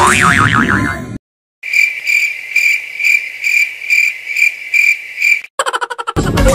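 Crickets chirping as an edited-in sound effect: one high steady pitch pulsing about three to four times a second. It follows a second of music and a short dead silence, and ends in a quick run of clicks.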